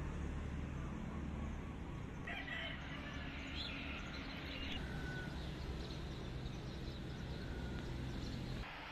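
Background ambience: a steady low rumble, with a few short bird calls between about two and five seconds in.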